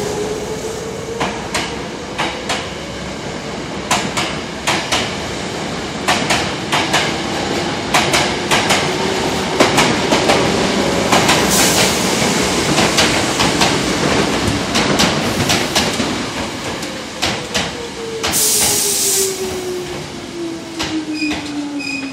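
Hankyu electric commuter trains at a station platform: one pulls out with its wheels clacking over rail joints and its motor whine rising, then another runs in on the far track, its motor whine falling as it brakes to a stop. Two short bursts of air hiss come through the middle and late part.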